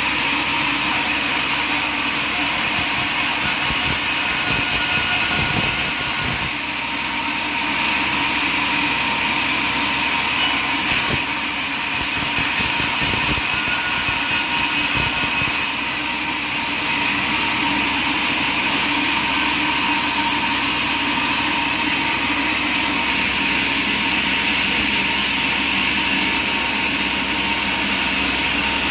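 Sawmill running steadily: its engine and saw blade make a continuous mechanical drone with a steady whine, easing off briefly twice, about six seconds in and again near the middle.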